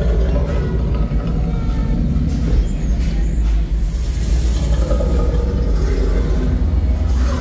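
Steady deep rumble of a walk-through dinosaur exhibit's ambient soundscape, with faint sounds above it and no clear events.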